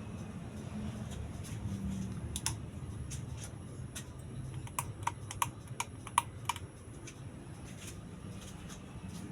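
A run of about eight sharp, irregular light clicks over a low steady hum.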